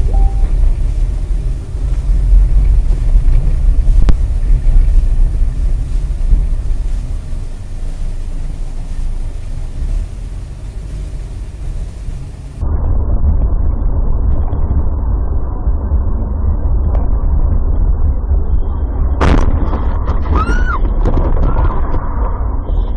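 Dashcam recording of a car driving on snowy roads: a loud low rumble of engine and road noise in the cabin, which changes abruptly about halfway through. A sharp bang comes about three-quarters of the way in, followed by a few short, high rising-and-falling sounds.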